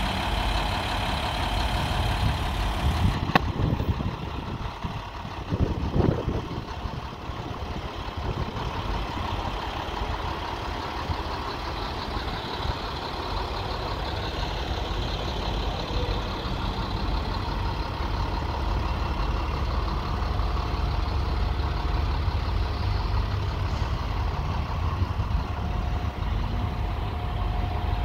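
Truck engine idling steadily, with a sharp click a little over three seconds in.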